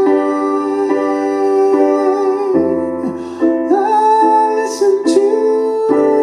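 Live solo performance: a man sings long, sliding held notes over sustained piano chords.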